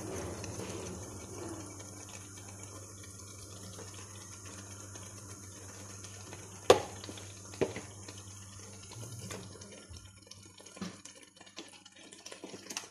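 Fish pieces in oily spiced masala sizzling and bubbling in a frying pan, a steady hiss with a few sharp clicks, the loudest about seven seconds in, and small crackles near the end.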